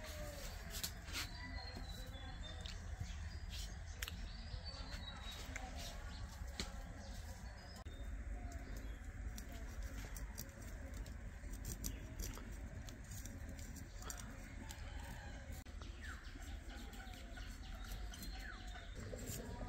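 Coconut flesh being scraped on a metal hand coconut scraper (kuruni): irregular short scrapes and clicks, with birds chirping in the background.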